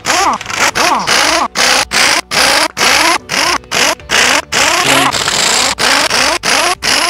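Pneumatic impact wrench running in short bursts, about two to three a second, each with a whine that rises and falls, spinning the loosened head bolts out of a 6.5L diesel V8's cylinder head.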